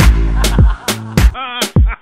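Dance music with a heavy drum beat and deep bass, and a short wavering melodic line about one and a half seconds in.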